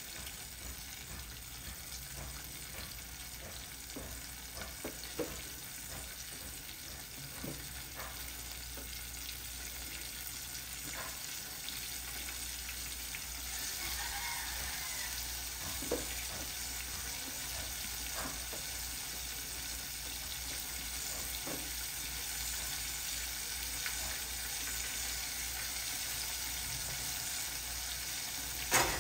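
Breaded chicken pieces deep-frying in hot cooking oil: a steady sizzle with scattered sharp pops, getting a little louder about halfway through. Near the end come two loud sharp knocks.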